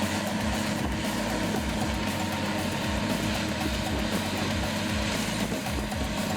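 Heavy engine of a 600-horsepower PrimeTech PT600 tracked forestry mulcher running steadily, with a dense even machine noise and a held drone.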